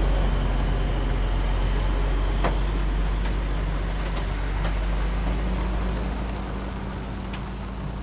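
Heavy truck engine rumbling steadily at low revs, easing off a little about six seconds in, with a few faint clicks.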